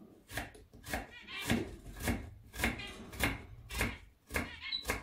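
Kitchen knife slicing through a raw onion on a wooden cutting board, a little under two strokes a second: each cut ends in a short knock on the board.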